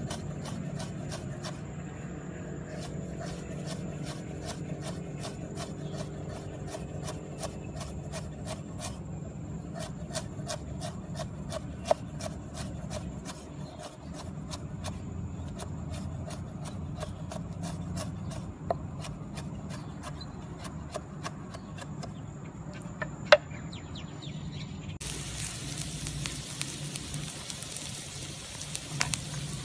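Cleaver chopping garlic and ginger on a wooden cutting board, quick even knocks about three or four a second with short pauses between runs. About 25 s in it gives way abruptly to the steady sizzle of chopped aromatics frying in a wok.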